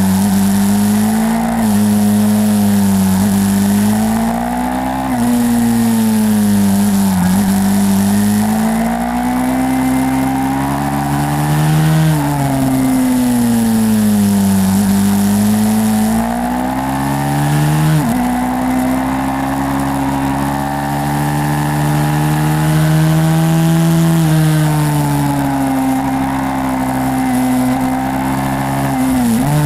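YCF 150 SM pit bike's single-cylinder four-stroke engine running hard, its note rising and falling as the bike accelerates and slows, with sudden drops in pitch at gear changes.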